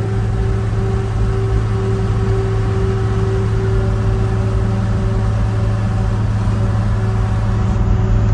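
First-generation Dodge pickup cruising at a steady highway speed, heard inside the cab: an even engine hum over a constant road drone, with no change in pitch.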